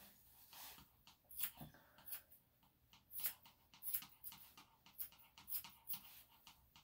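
Grooming scissors snipping the hair on a Yorkshire Terrier's paw pad, a scattered series of short, sharp snips, with the dog panting softly.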